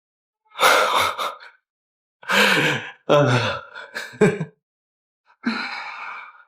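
A person's breathy gasps and sighs, four in a row, with a short falling moan in the middle.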